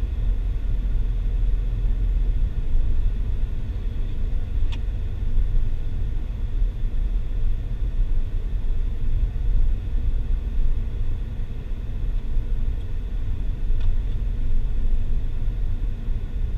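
Steady low road and engine rumble of a car driving at a steady speed, heard from inside the cabin, with a couple of faint ticks.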